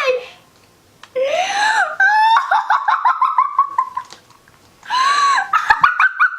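Young girls squealing and giggling with excitement. A high squeal rises and falls about a second in, then a quick run of laughs drops in pitch, and another squeal and burst of giggles come near the end.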